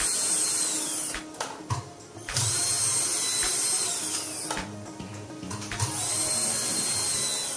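Cordless drill running in three bursts of about two seconds each, its motor whine winding down in pitch as each burst stops.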